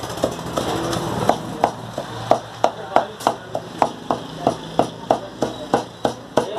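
Heavy meat cleaver chopping raw meat into mince on a wooden log chopping block: a steady run of sharp chops, about three a second.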